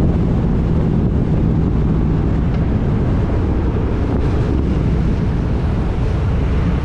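Motorcycle engine running steadily at highway cruising speed, under a constant rush of wind over the microphone.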